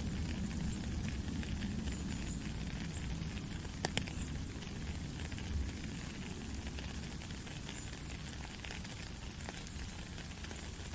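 Steady rain falling in a forest: a dense patter of drops over a low rumble, with one sharper drop striking about four seconds in.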